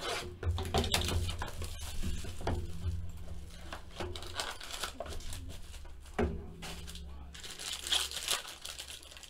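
Plastic and foil wrapping crinkling and tearing as a sealed baseball card box is opened and its foil-wrapped pack unwrapped, with light clicks of the cardboard box being handled. The crinkling is densest near the end.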